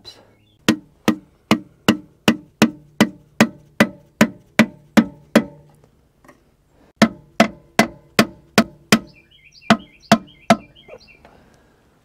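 Dead-blow hammer tapping on a block of wood in an even run of strikes, about two and a half a second, to drive a piston and connecting rod up out of the cylinder of a Ford 555 backhoe's diesel engine. The tapping stops for over a second about halfway through, then a second run of strikes follows.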